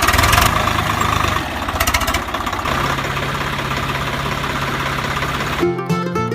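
An engine running with a rapid, even chatter. A steady low hum joins about two to three seconds in. Near the end the background music cuts back in.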